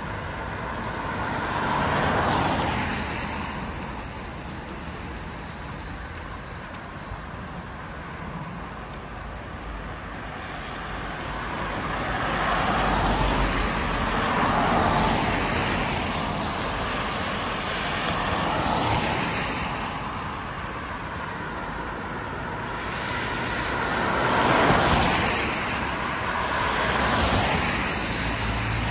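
Cars passing one after another on a wet road, each one a rush of tyre hiss on wet tarmac that swells and fades over a few seconds, about six passes in all, over a steady background of traffic.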